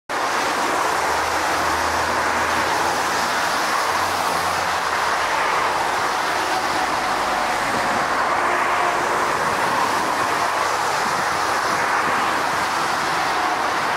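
Airbus A380 on final approach: its four jet engines make a steady rushing noise that holds level throughout.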